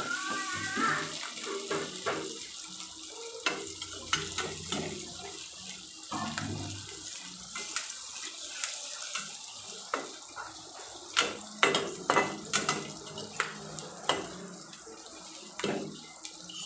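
Sliced onions sizzling as they fry in oil in an aluminium kadai, frying until brown. A perforated metal spatula clinks and scrapes against the pan, with a run of sharp knocks about eleven to thirteen seconds in.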